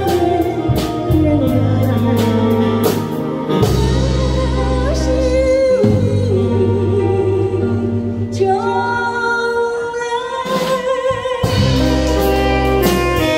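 A woman singing a ballad live into a microphone, holding long notes with vibrato, over a small band of electric guitar, saxophone and keyboard.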